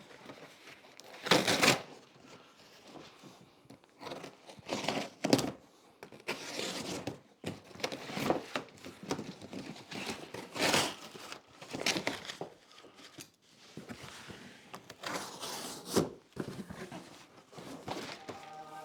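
Cardboard shipping box and its packing material being torn open and handled: irregular bursts of tearing and crinkling with rustling in between.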